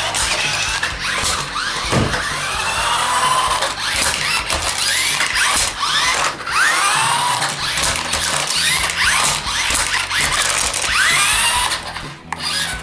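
Battery-powered RC flipper toy car's electric motors whining, rising and falling in pitch again and again as it speeds up, reverses and flips, with hard knocks as it tumbles on the floor.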